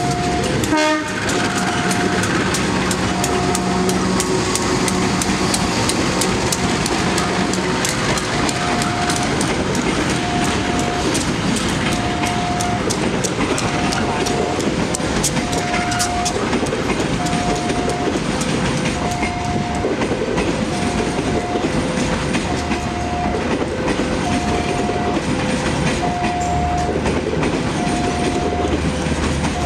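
Ekonomi Lokal passenger train rolling along the track, its wheels clicking steadily over rail joints. Over it a two-note electronic warning tone repeats about once a second, and a low engine hum rises near the end.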